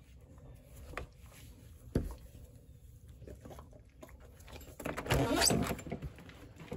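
Two light knocks about one and two seconds in, then a louder rattling, scraping noise of a door being unlatched and opened, about five seconds in.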